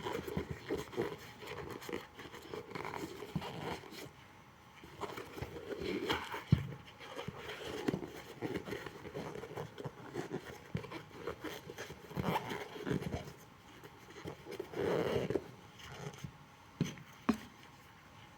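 Uneven scraping and rubbing with sharp taps and clicks, as from hand work on a shoe sole. A louder single click comes about six seconds in, and another near the end.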